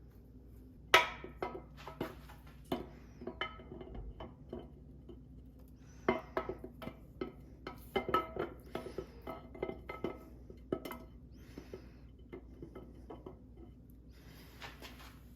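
Metal engine parts and tools clinking and tapping against each other, with many irregular sharp clinks that ring briefly. The loudest comes about a second in, and there is a busy run in the middle.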